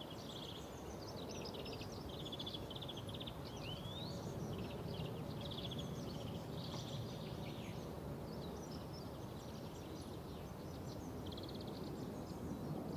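Small birds chirping and trilling, many short calls and quick rising glides, over a steady low outdoor background rumble.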